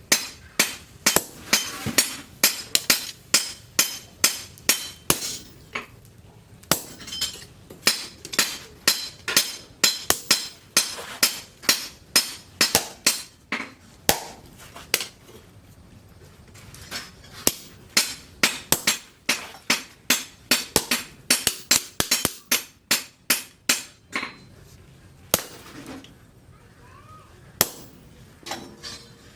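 Hammer blows on steel over an anvil, about two a second with a bright ringing clang on each strike, in several runs broken by short pauses: forging a piece of leaf-spring steel.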